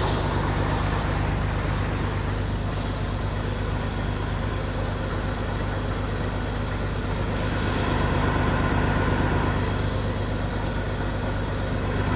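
A farm machine's engine idling steadily, a low even running with a constant hum.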